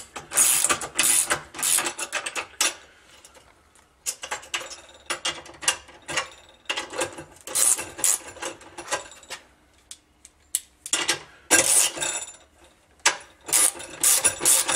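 Socket ratchet wrench clicking in quick runs of strokes as bolts are tightened on a metal mounting bracket, with a couple of short pauses.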